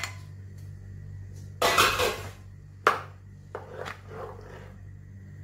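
Spatula stirring chana dal into coconut milk in a pan: a scrape about a second and a half in, a sharp knock about a second later, then softer stirring sounds. A steady low hum runs underneath.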